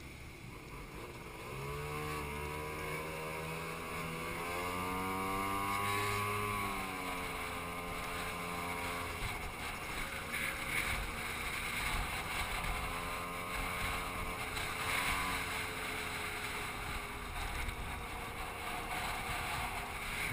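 Motor scooter engine accelerating: its note comes in about a second and a half in and rises in pitch for several seconds, then drops back and runs steadily as the scooter cruises, with wind noise over the microphone.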